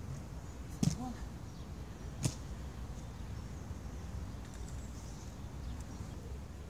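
Two sharp clacks about a second and a half apart, inline skates landing hard on concrete, over a steady low outdoor rumble.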